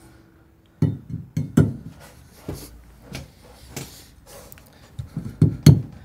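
A steel bar jabbed down a hole in a floor, knocking and chipping at terracotta brick: irregular sharp knocks of uneven strength, with a brief gritty scrape in the middle and a quicker run of knocks near the end.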